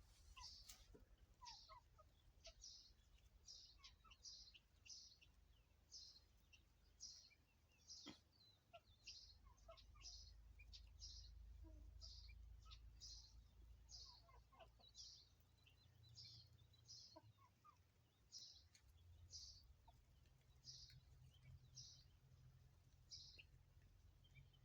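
A bird calling, a short high chirp repeated steadily about three times every two seconds, faint over a low rumble.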